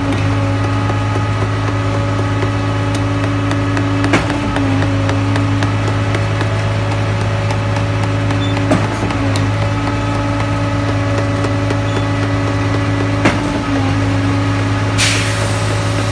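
Concrete mixer truck's diesel engine running steadily with a low hum, with a sharp knock about every four and a half seconds and a short hiss of air near the end.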